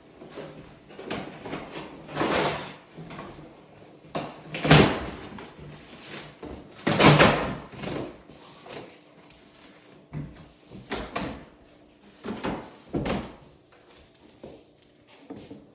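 Handling of a large cardboard box and its packaging: irregular scraping, rustling and knocking, loudest about five and seven seconds in.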